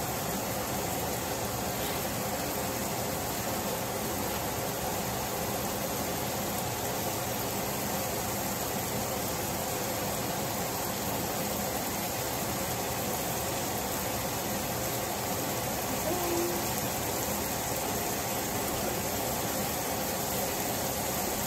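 Steady hiss of diced tomatoes, onion and garlic sizzling gently in oil in a stainless steel pan.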